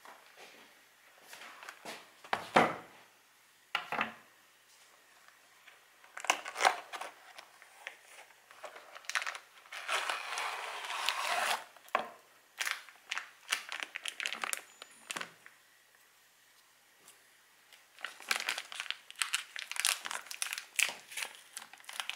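Unboxing a motorcycle chain: cardboard box and foil wrapper handled, with a sharp knock a few seconds in and a stretch of continuous foil crinkling around the middle. Near the end, rapid small snips of scissors cutting into the foil packet.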